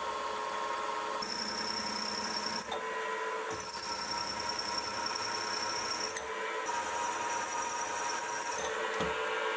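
Mini milling machine drilling 316 stainless steel, a hard metal to drill: the spindle runs steadily while the drill bit cuts. A high whine comes and goes three times.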